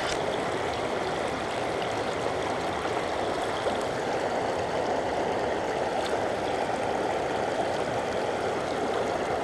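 Small mountain stream flowing over rocks: a steady rush of water with no change.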